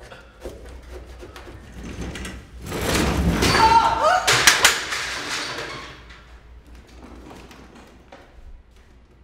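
A door bangs open, followed by a loud thud and clatter with several sharp knocks, starting about three seconds in and dying away by about six seconds.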